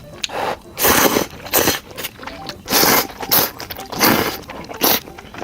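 Person slurping spicy ramen noodles close to the microphone: a run of about seven short, loud, airy slurps at irregular intervals.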